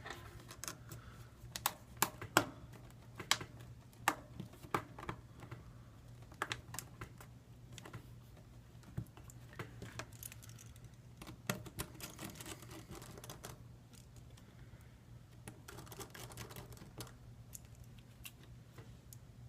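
Irregular small clicks and taps of tools and small parts being handled as a smartphone is put back together, with soft rustling in places, over a steady low hum.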